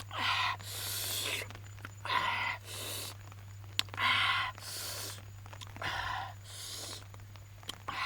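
A person breathing hard through the mouth: a breathy huff followed by a sharp hissing draw of air, repeating about every two seconds, the hissing reaction to hot chili peppers in the mouth.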